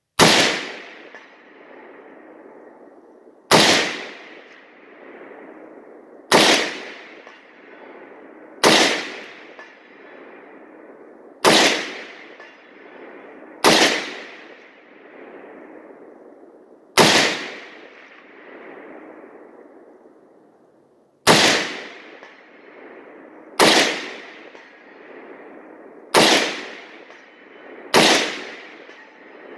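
AK-47 rifle (7.62×39mm) firing a slow string of single aimed shots, eleven of them, two to four seconds apart. Each sharp report is followed by a long echoing tail that dies away before the next shot.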